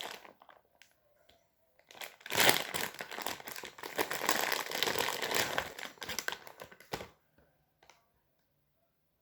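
Packaging crinkling as it is handled, loud and crackly from about two seconds in until it stops near seven seconds.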